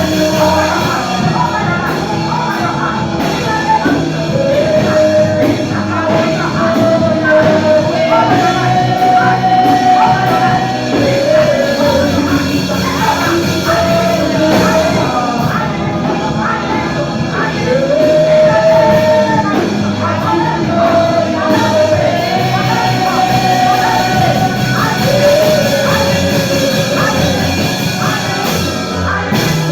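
Church worship music: a lead singer holding long, slightly wavering notes over a full band with drums.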